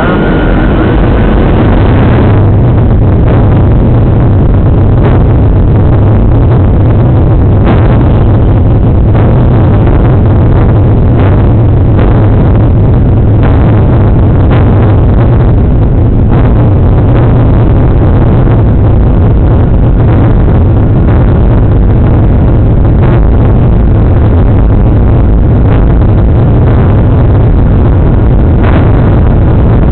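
Boeing 737 jet engines at takeoff thrust heard from inside the cabin: a loud, steady, deep roar that swells about two seconds in. Occasional short knocks and rattles run through it.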